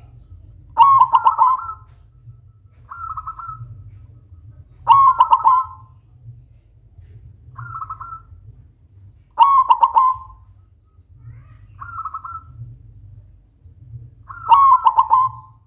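Silver zebra dove (perkutut) cooing: four loud phrases of rapid staccato coos, about four to five seconds apart, with softer, shorter phrases between them.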